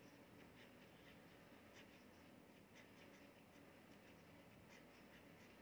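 Faint scratching of a pen writing by hand on notebook paper, in short irregular strokes.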